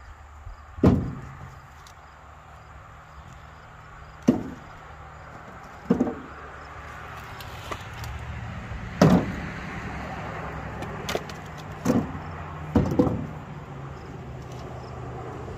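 Split firewood pieces tossed one at a time into a pickup truck bed, landing with sharp knocks about every one to three seconds, about eight in all, over a steady low rumble.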